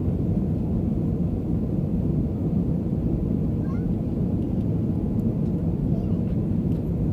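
Steady low rumble of engine and airflow noise inside a jet airliner's cabin in flight.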